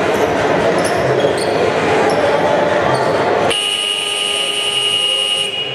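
Basketball game noise in a sports hall, then a scoreboard buzzer sounds a steady, high electronic tone for about two seconds, starting a little past halfway and cutting off suddenly.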